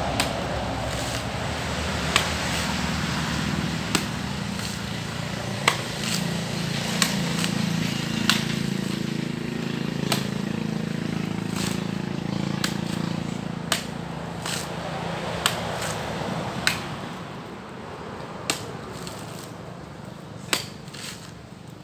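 Sharp knocks at irregular intervals, about one every one to two seconds, over a steady low hum that fades in the second half.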